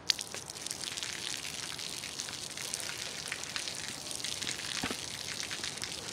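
A thin stream of water falling from above and splashing and pattering, with many small drop splashes over a steady hiss and a sharp tap right at the start.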